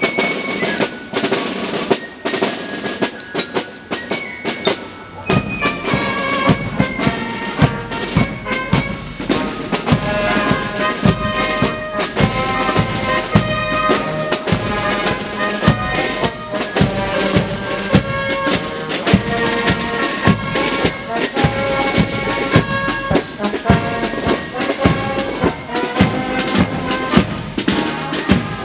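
Marching band playing a march with brass and drums; the bass drum's steady beat comes in strongly about five seconds in.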